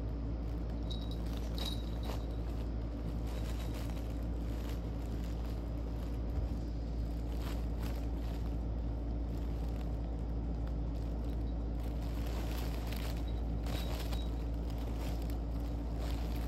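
Steady low hum with scattered soft rustles of a fabric cat play tunnel and wand toy as the cat shifts inside it, a few bunched around 7–8 seconds and again near 13–14 seconds.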